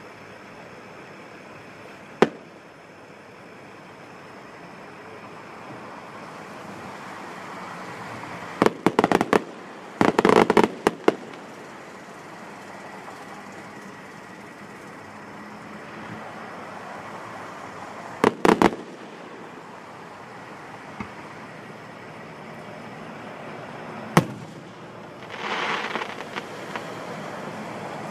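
Aerial fireworks bursting: a single bang a couple of seconds in, then a rapid cluster of bangs in the middle, a pair of bangs a little later and a last bang near the end, followed by a brief rush of crackle.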